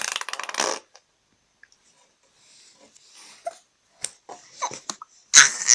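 A raspberry fart noise blown with the lips, a short buzzy, sputtering burst about a second long at the start and another brief one near the end, with small faint mouth sounds and clicks in between.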